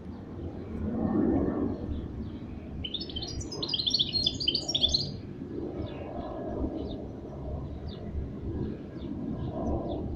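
Mestiço, a hybrid of a canary and a wild finch, singing: a quick burst of twittering song about three seconds in, then scattered soft notes, over a low background rumble.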